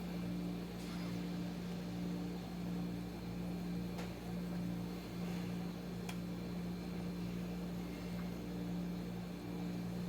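Steady low hum of a kitchen appliance motor, with a faint regular pulsing in its tone and a couple of faint ticks.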